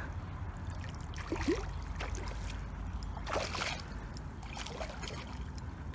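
Water splashing as a hooked carp thrashes at the surface near the landing net, the loudest splash about three and a half seconds in, over a steady low rumble.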